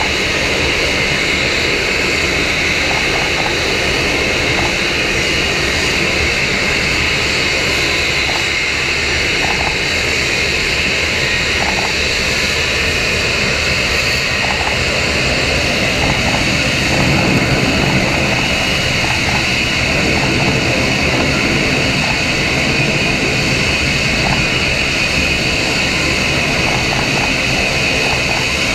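F-35B Lightning II hovering in vertical-landing mode, its jet engine and lift fan running at high thrust: a loud, steady rushing noise with a high whine over it, swelling slightly about two-thirds through.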